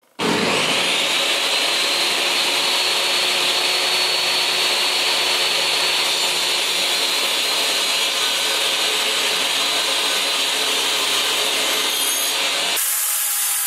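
Jobsite table saw running, its blade cutting a kerf through the plywood base of a crosscut sled as the sled is pushed through: a steady, loud whine with cutting noise. Near the end the sound changes abruptly to a different, steadier hum.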